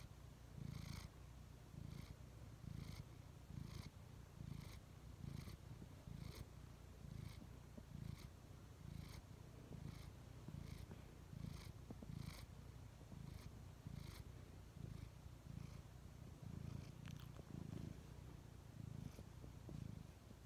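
Orange tabby cat purring close to the microphone, a low steady rumble that swells and fades about once a second with its breathing.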